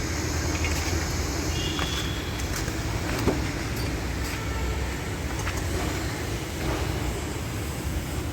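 A steady low motor-vehicle rumble with scattered light clicks, and one sharp click about three seconds in.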